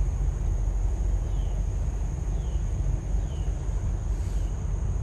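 Wind rumbling steadily on the microphone, under a thin steady high insect drone, with faint short downward chirps about once a second.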